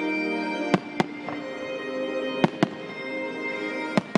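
Aerial firework shells bursting in sharp bangs, about six of them, several coming in quick pairs, over steady music playing with the show.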